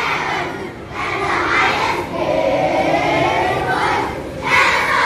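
A large group of children's voices shouting and chanting together in unison, with a long wavering held note in the middle and a louder shout near the end.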